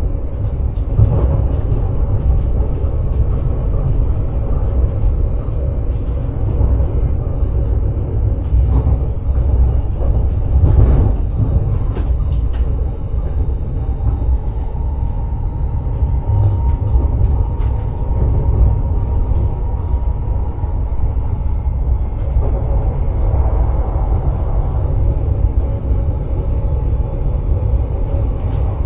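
Sprinter electric multiple-unit train running along the line, heard from the driver's cab: a steady low rumble with a few sharp clicks.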